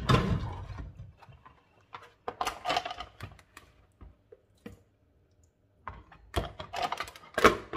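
Plastic salad spinner being handled: irregular knocks and light rattles as the slotted basket of cut puntarelle is lifted and shifted over the bowl.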